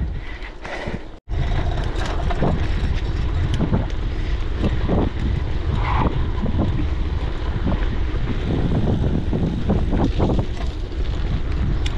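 Wind buffeting the microphone of a bike-mounted action camera while riding, a loud steady rush that starts abruptly after a brief gap about a second in.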